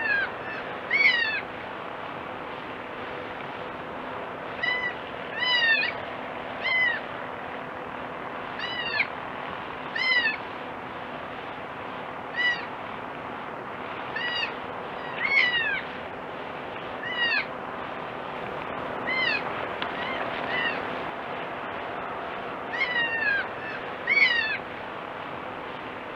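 Goat kid bleating over and over: short, high-pitched cries, often in quick pairs, every second or two, over a steady background hiss.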